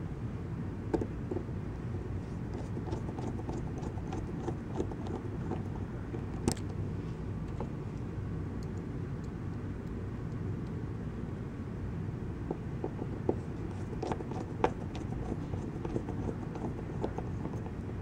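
Steady low background hum with scattered faint clicks and taps, a few of them sharper.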